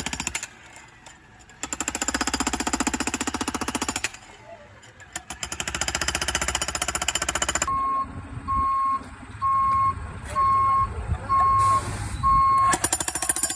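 Jackhammer breaking up a cement porch in bursts of rapid hammering a few seconds long. In the second half a reversing alarm beeps about once a second over a low engine rumble, and the hammering starts again near the end.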